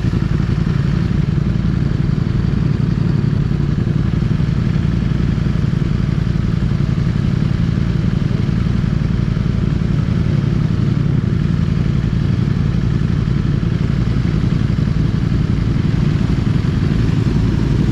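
Motorcycle running at a steady pace, a loud, even engine rumble with no change in pitch.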